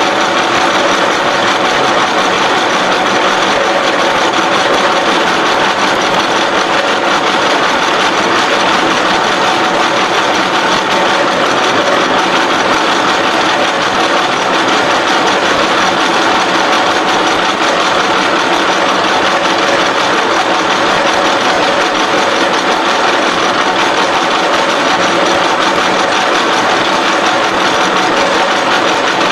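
SXA55 CNC H-beam bevelling machine cutting a bevel along the edge of a steel beam flange: steady machine noise with several held whining tones, unbroken and even.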